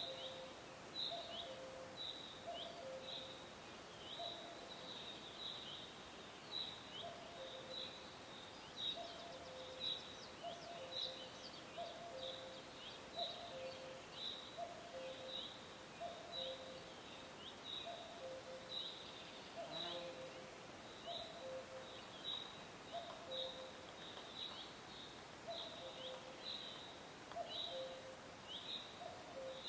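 A cuckoo repeating its two-note falling "cu-ckoo" call about once a second. Under it run a smaller bird's quick, high, downward chirps and a steady hiss of forest background.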